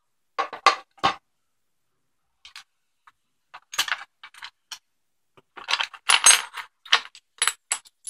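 Metal clicks and clinks of a tool tray, screwdrivers and a brass padlock being handled and set down: a few sharp clicks near the start, a sparse stretch, then a busier run of clinks with a faint high ring in the last few seconds.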